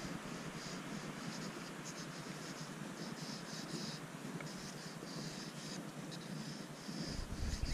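A square pastel stick (Sakura Nouvel Carré Conté crayon) scratching across sketchbook paper in short, irregular strokes. A low rumble comes in near the end.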